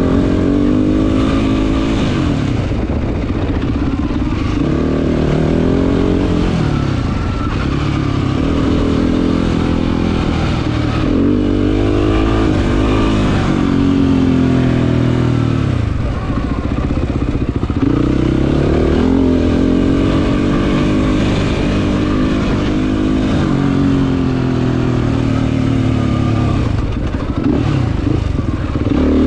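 Race quad's engine running hard, its pitch climbing and dropping again and again as the throttle is worked over rough desert ground.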